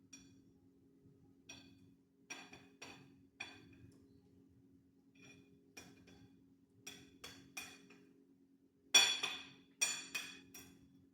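Kitchen utensils clinking against dishware: about a dozen sharp, ringing clinks at irregular intervals, the loudest two about nine and ten seconds in. A steady low hum runs underneath.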